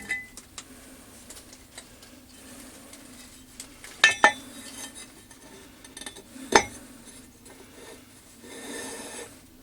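Metal tools or parts clinking as they are handled and set down: a few sharp clinks, two close together about four seconds in and another a couple of seconds later, over a faint steady hum.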